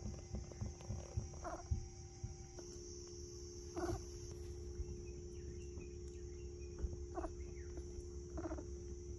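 Baby vervet monkey giving four short chirping calls, with soft rustling and bumps of blankets as it plays.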